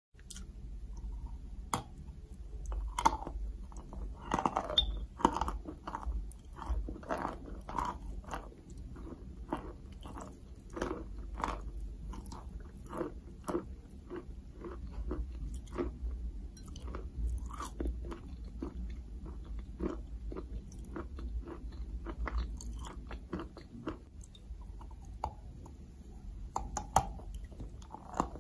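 Dry white chalk being bitten and chewed close to the microphone: a run of sharp, irregular crunches with softer chewing between them, the loudest bites about 3 and 5 seconds in and again near the end. A steady low hum runs underneath.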